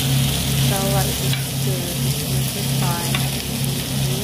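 Food frying in a pan, a steady sizzling hiss, with a low hum beneath that pulses about twice a second.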